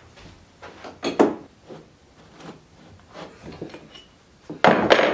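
Steel wrenches clinking, knocking and scraping as they are handled, with one sharper strike about a second in and a louder metallic clatter near the end as two wrenches are worked on a hydraulic hose fitting.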